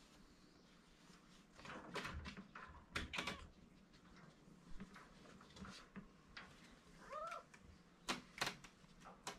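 Tuxedo kittens pawing at a wire cage: scattered clicks and rattles of the metal bars, with one short kitten meow, rising then falling, about seven seconds in.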